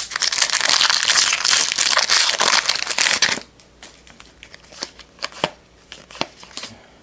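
A trading-card pack's foil wrapper crinkling and tearing open for about three and a half seconds, then the card stack being handled with scattered light clicks and flicks.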